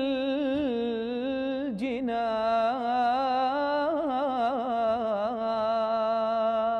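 A man singing a mawwal unaccompanied, drawing out one long vowel: held fairly steady at first, then wavering through quick ornamented turns from about two seconds in, and settling back onto a steady note near the end.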